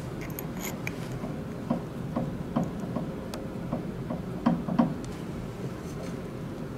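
Light clicks and metallic knocks from the chuck of an Optimum B33 Pro Vario pillar drill as it is turned by hand and a twist drill bit is fitted into it. They come roughly two a second through the middle of the stretch, over a steady room hum.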